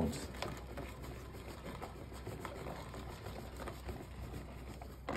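Hand-cranked plastic manual chopper being turned, its blades chopping fresh peppers into a rough blend: a faint, irregular clicking and rustling, with a sharper click near the end.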